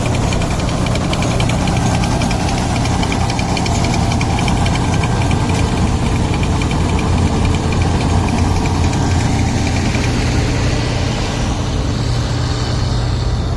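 Combine harvester engine running steadily under load, with a fast, even clatter from the machine over a low hum.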